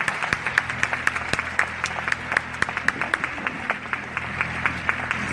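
Theatre audience applauding, dense clapping throughout, over a faint low sustained note.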